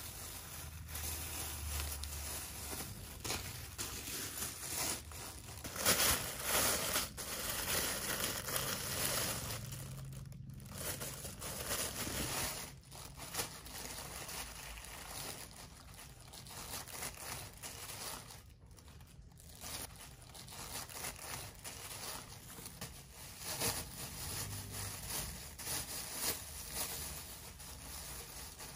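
Thin clear plastic bags crinkling and rustling on and off as a child's hands pull vegetables out of them, with a louder rustle about six seconds in.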